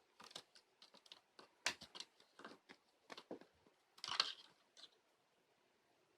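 Faint irregular taps and light rustles, like paper or tissue being handled, with a short burst of denser rustling about four seconds in; it stops about five seconds in.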